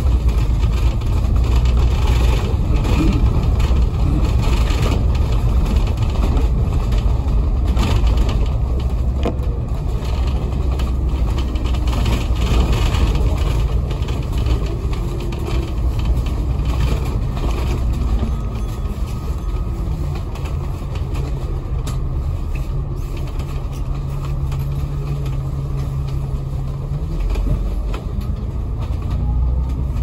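Inside a Hong Kong double-decker bus: the engine and drivetrain run under way with a loud low rumble and whining tones that glide up and down. From about 20 seconds in, the level drops a little and a steady low hum holds, briefly rising near the end.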